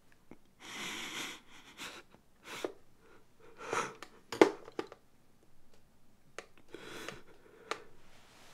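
A young man breathing heavily and sniffing, in a series of short ragged breaths, with a sharp catching breath about four and a half seconds in.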